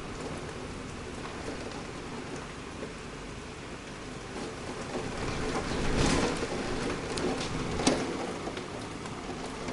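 Heavy thunderstorm rain falling steadily. It swells into a crackle of thunder about six seconds in, with a sharp crack near eight seconds.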